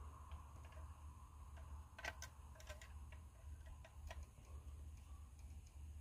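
Faint, scattered clicks of parts and hand tools being handled while the fuel bowl heater is refitted in a diesel engine bay: a few close together about two seconds in and one more about four seconds in, over a low steady hum.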